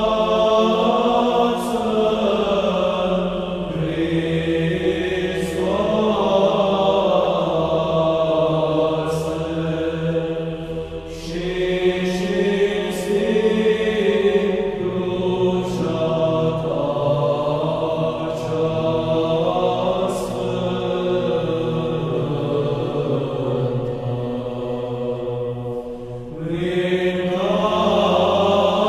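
Chanting voices singing slow, drawn-out melodic lines over a steady low held note, pausing briefly three times for breath.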